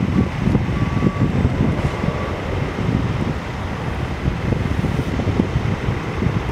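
Wind buffeting the microphone: a steady, gusty low rumble with no distinct events. A faint high tone sounds on and off during the first two seconds.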